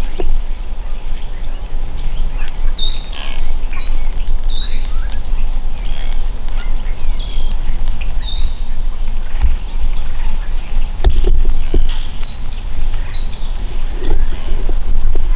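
Small songbirds chirping and trilling again and again, over a steady low rumble, with a couple of sharp knocks about two-thirds of the way through.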